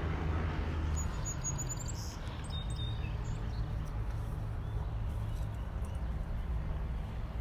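Outdoor background: a steady low rumble, with a vehicle's engine hum fading out in the first second and a few faint bird chirps about one to three seconds in.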